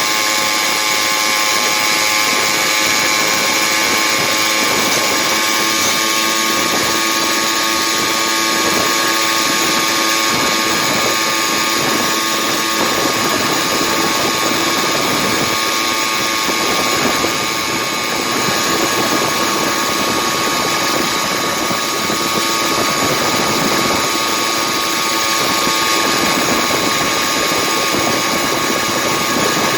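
Two-stroke Stihl MS460-based engine of a motorized bicycle running steadily at high revs while cruising, its note holding almost unchanged, easing off slightly about halfway through.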